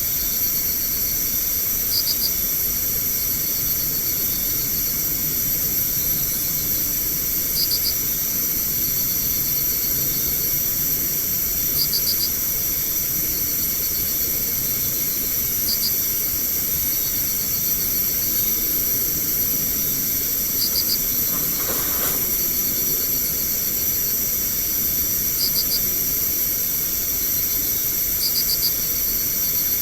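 Night insect chorus: crickets and other insects trilling steadily at a high pitch over a steady hiss, with one cricket giving short clusters of three or four chirps every few seconds. Once, about two-thirds of the way through, a brief sound falls quickly in pitch.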